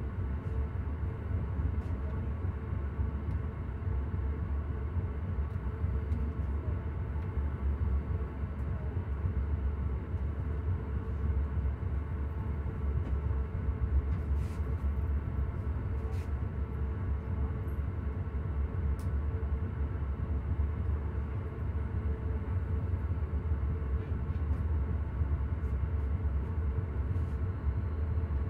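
Passenger train running steadily along the line, heard from inside the coach: a constant low rumble with a steady hum over it.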